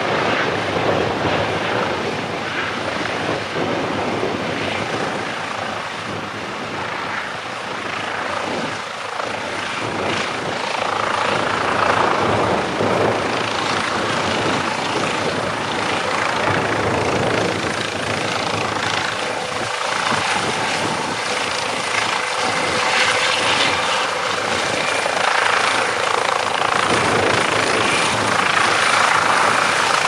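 Eurocopter EC135T2 helicopter hovering and manoeuvring low: its twin turboshaft engines whine steadily over the main rotor and Fenestron shrouded tail rotor. The sound swells and eases slowly as the helicopter turns and moves.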